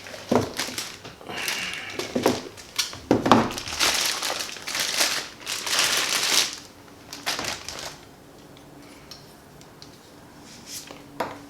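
Packaging crinkling and rustling as it is handled and pulled apart while unboxing a microphone, in dense bursts for about eight seconds, then quieter with a few small knocks.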